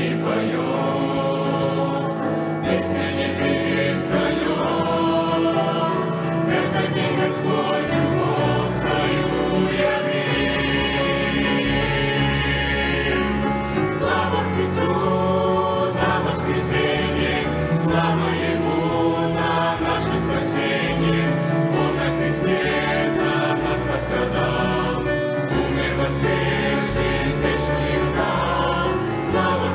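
Youth choir singing a Christian song with instrumental accompaniment: a bass line under the voices and regular percussion strokes.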